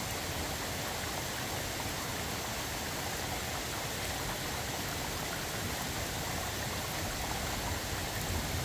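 Steady summer rain falling, an even unbroken hiss of drops.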